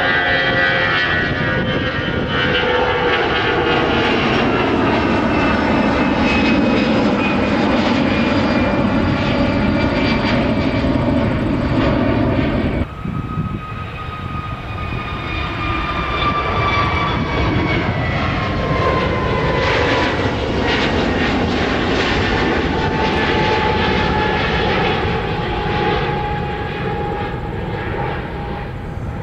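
Jet engines of two departing airliners climbing out, an Airbus A320-200 and then an Airbus A321neo. Each gives a steady rumble with high whining tones that slowly fall in pitch as it climbs away. The sound changes abruptly about halfway through to the second aircraft, somewhat quieter, which fades a little near the end.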